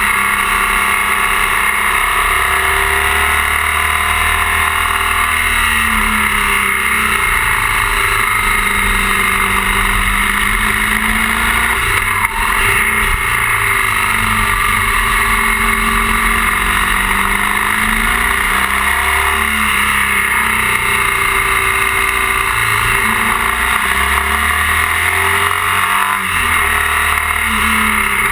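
BMW R 1200 GS boxer twin engine running while the bike is ridden through bends, its pitch rising and falling again and again with the throttle, under a steady rush of wind noise.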